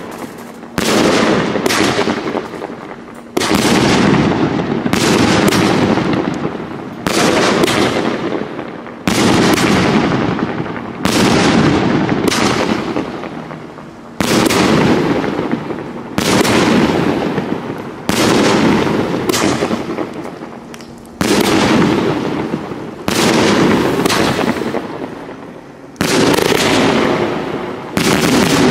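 Banana Surprise firework cake firing a long string of shots: a loud bang about every one to two seconds, each trailing off over a second or two before the next. The sky-bursts crackle.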